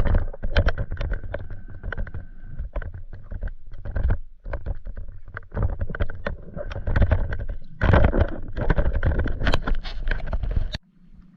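Water sloshing and splashing with many short knocks and rustles, heavy in the low rumble. It cuts off suddenly near the end, leaving a faint hum.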